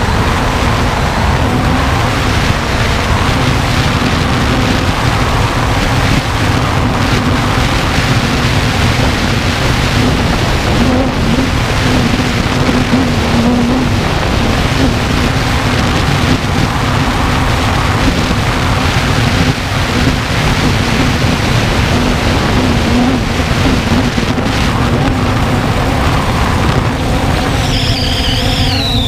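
A 3DR Solo quadcopter's motors and propellers humming steadily in flight, heard from its onboard camera with heavy wind rumble on the microphone. Near the end a high whine bends down and back up.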